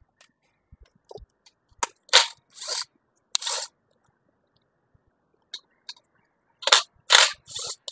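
RIDGID cordless impact driver run in short bursts, four quick ones about two to three and a half seconds in and four more near the end, backing out the screws that hold a portable generator's voltage regulator (AVR) in place.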